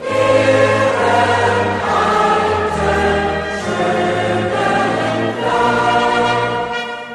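Background music of a choir singing, with voices holding long chords that change about every second.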